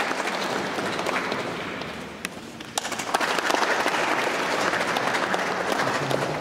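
Audience applauding: dense clapping that fades about two seconds in, then swells again a second later as a new round of applause begins.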